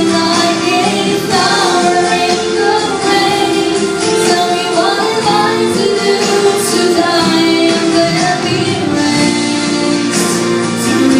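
A song with a female voice singing over instrumental accompaniment.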